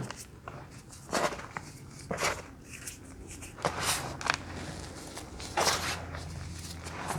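Close-miked chewing of crunchy snack bars: a handful of sharp crunches at irregular intervals, about one a second.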